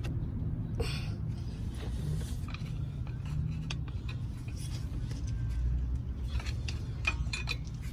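Steady low rumble of road traffic or a vehicle running, with a few faint clicks and taps of hand tools.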